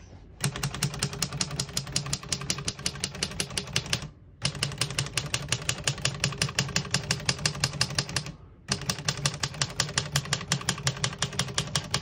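Rapid typing on a 1958 Royal Speed King manual portable typewriter: a fast, even clatter of keystrokes and typebars striking the platen, in three runs broken by two short pauses.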